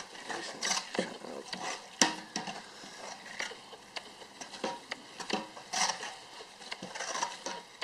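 Large spoon stirring a roux of oil and flour in a pot, with irregular scrapes and knocks against the pot and a light sizzle as the roux bubbles.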